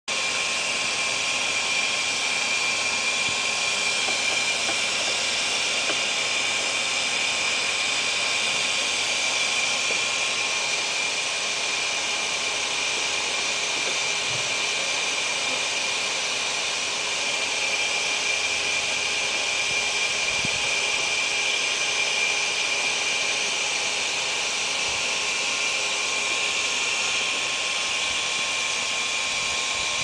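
A motor runs steadily with a whooshing rush and a constant high whine, without changing throughout.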